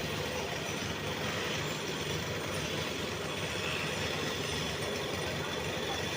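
Heavy engine running steadily, with a low, even drone.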